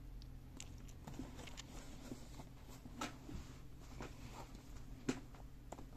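Faint handling noises of a paperback book being turned over in the hands: a few soft, scattered taps and rustles of the card cover over a low steady hum.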